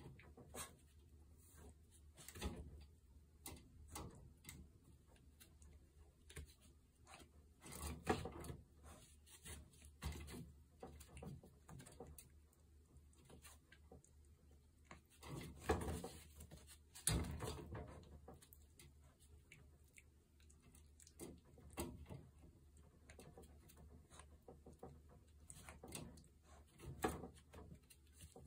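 Toy poodle tugging and chewing at a plaid cloth through a wire playpen: faint, irregular rattling and knocking of the wire mesh panel with rustling of the cloth, plus a few louder knocks.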